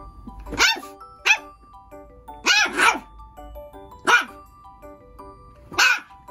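A micro teacup toy poodle barking in six short, high-pitched yaps, two of them close together in the middle, over soft background music.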